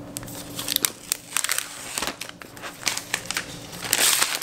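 Thin protective wrap sheet rustling and crinkling as it is peeled off a new MacBook, with a run of small sharp clicks and crackles from handling the laptop and its box; the crinkling is loudest just before the end.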